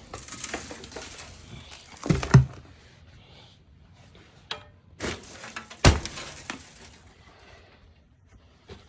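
Clanks and knocks from hands-on work on an oil boiler's flue pipe and chimney connection, loudest about two seconds in and again near six seconds, with quieter handling noise and small clicks between.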